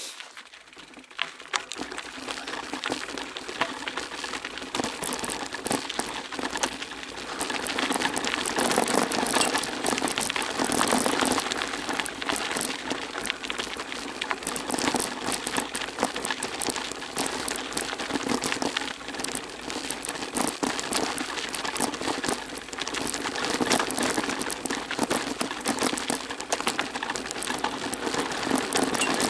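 Bicycle tyres rolling fast over a gravel forest road on a downhill run, a dense continuous crunching and crackling of loose stones with the bike rattling, getting louder about eight seconds in.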